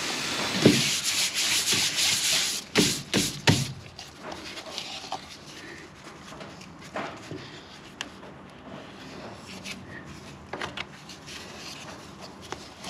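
A wooden stick scraping and spreading thickened epoxy fairing compound over a fiberglass surface. The scraping is loudest in the first few seconds, with a few sharp knocks around three seconds in, then goes on softer with scattered small clicks.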